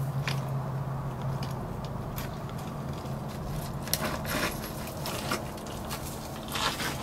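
Shoes scuffing and crunching on rock and grit while scrambling up a rocky outcrop, a scattering of short scrapes and clicks, over a steady low hum.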